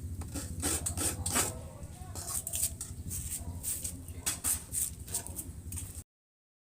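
Coconut meat being scraped on a serrated coconut grater: repeated raspy scraping strokes, about two to three a second, grating fresh coconut for coconut milk. The strokes stop abruptly about six seconds in.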